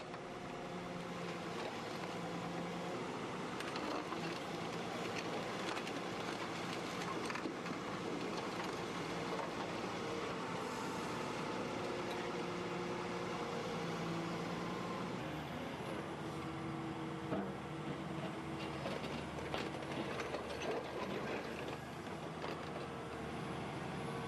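Volvo C-series crawler excavator running on its diesel engine while it manoeuvres on its tracks, a steady engine hum with track and hydraulic clatter. The engine note changes about fifteen seconds in.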